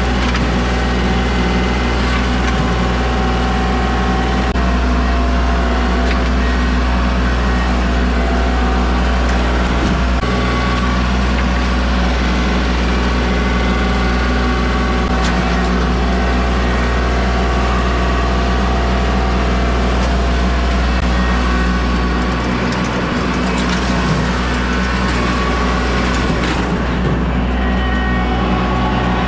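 A large vehicle or machine engine running steadily at an even speed, a constant low drone with no change in pace.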